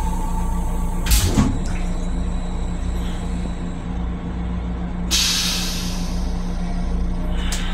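Steady hum and rumble of a Metro-North M7 electric railcar, heard from inside its small restroom. There is a loud clunk about a second in, and a hiss starts about five seconds in.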